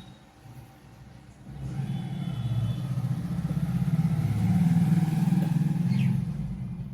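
Motor vehicle passing, a low engine rumble that swells over a few seconds and fades away.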